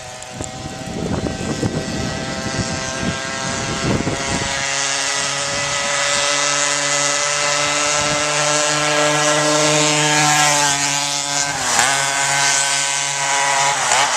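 Poulan 3400 56cc two-stroke chainsaw engine with a KTM 85 SX expansion pipe, powering a scooter and running hard with a high, steady whine that grows louder. Its pitch bends near the end and drops sharply as it goes by.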